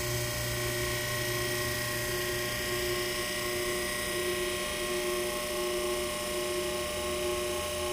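Late-1920s Master Electric 1 hp repulsion-start induction-run motor running steadily at speed, a smooth electrical hum and whir with a slow regular waver; the deep part of the hum weakens about halfway through. The motor is working again on its newly fabricated short-circuiting spring.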